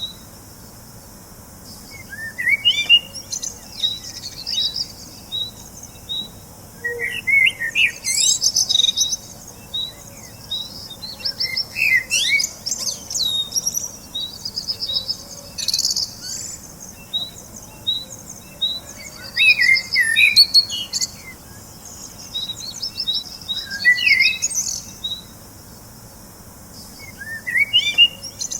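Several small songbirds chirping and singing: a steady run of short, high repeated chirps, with quick warbling phrases every few seconds.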